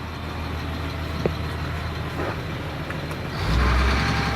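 Blue Bird Vision bus's 7.2-litre Caterpillar C7 inline-six diesel idling, then stepping up to high idle about three and a half seconds in, running louder and steadier at the raised speed.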